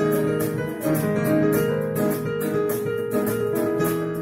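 Instrumental break in a worship song: a keyboard plays held chords, which change every second or so, over a steady rhythmic accompaniment.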